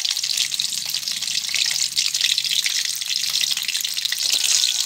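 Peeled boiled eggs frying in hot oil in a metal pan, with a steady sizzle full of fine crackles.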